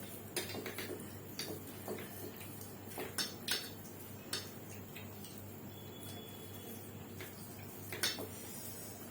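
Eating sounds: scattered light clicks and clinks against a plate as rice and mashed potato are mixed and eaten, a few louder clinks about three seconds in and again near the end, over a faint steady hum.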